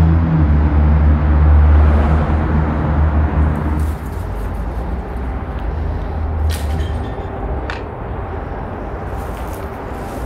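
A large engine rumbling with a steady low hum, loud at first and fading after about four seconds. A couple of sharp clicks follow later.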